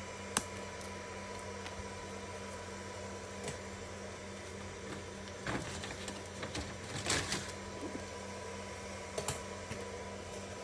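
Scattered small plastic clicks and rattles of zip ties being worked on a motorcycle boot: one sharp snap just after the start, a cluster of clicks in the middle, and a quick double click near the end, over a steady hum.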